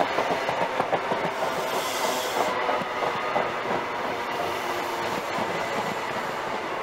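First Great Western InterCity 125 Mark 3 coaches rolling past, their wheels clattering over rail joints in a quick run of clicks that thins out after about three seconds. A short hiss comes around two seconds in.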